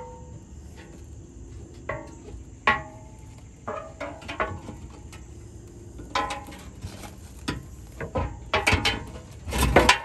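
Irregular metal clanks and clinks, each ringing briefly, as steel pry bars work the old dishpan off a Land Pride RCF2072 rotary cutter. The strikes come in bunches and are loudest near the end.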